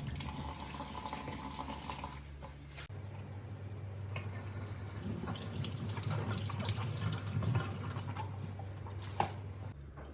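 Water running from a kitchen tap into a sink, with a few small knocks.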